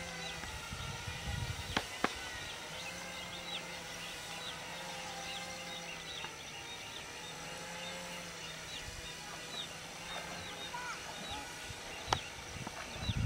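Steady, distant hum of a small electric drone airplane's motors and propellers, wavering slightly in pitch, with birds chirping throughout and a few sharp clicks, two of them about two seconds in.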